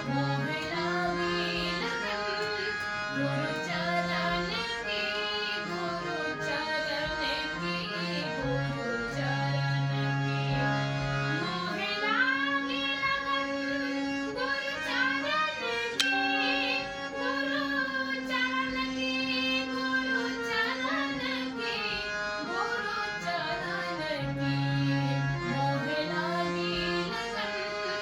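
A woman singing a Gujarati bhajan over held harmonium chords, her melody gliding and ornamented.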